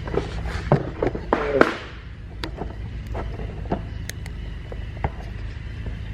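Car body parts being handled and fitted: scattered light clicks and knocks over a steady low hum, busiest in the first two seconds.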